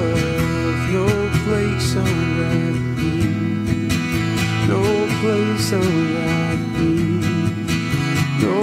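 Slow worship music: guitar playing over sustained chords, with a wavering melody line on top.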